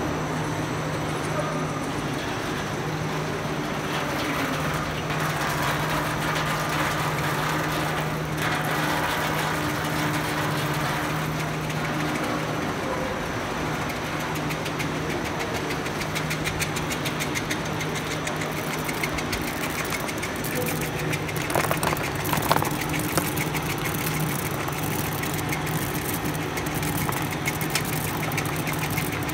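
Snack-food production line machinery running: a steady mechanical hum with a constant low drone. A fast, regular light ticking joins in over the second half, with a few louder knocks a little past the middle.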